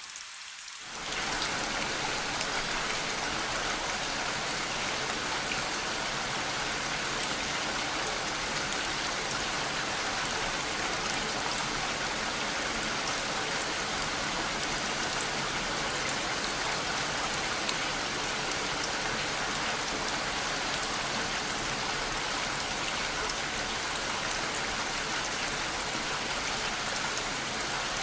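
Steady rain falling, an even dense hiss of many drops, used as sleep white noise. About a second in it steps up to a louder, fuller sound and then holds level.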